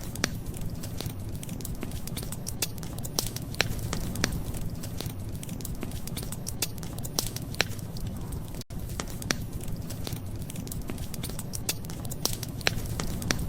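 Wood fire crackling, with irregular sharp pops and snaps over a steady low rush. A brief dropout in the sound a little under nine seconds in.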